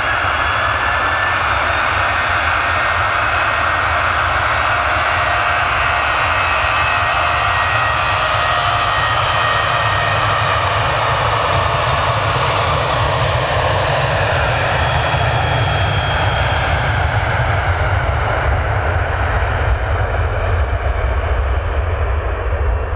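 Boeing 737-700's twin CFM56-7B turbofans at takeoff power on the takeoff roll: a loud, steady jet roar with whining fan tones. It is brightest as the airliner passes about halfway through, then drops in pitch and dulls to a deep rumble as it pulls away down the runway.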